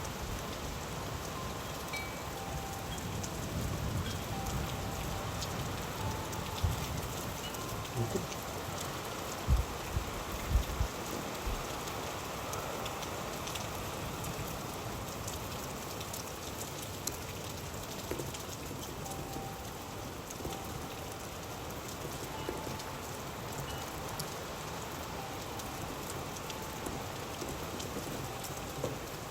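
Steady rain falling and pattering on surfaces, with a few short low thumps about ten seconds in.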